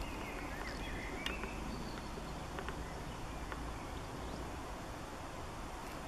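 Outdoor ambience: a steady low rumble with faint bird chirps in the first second or so and a few light clicks.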